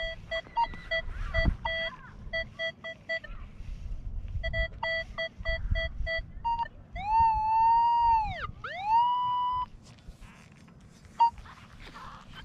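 Metal detector target tones: a run of short repeated beeps as the coil passes over a target reading 26, typical of a nickel. A little past halfway comes a longer tone that dips in pitch and rises back, twice.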